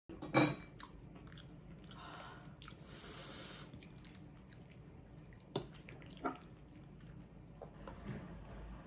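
Quiet room with a short knock just after the start, then two sharp clicks a little under a second apart about halfway through, like metal cutlery tapping on ceramic dishes.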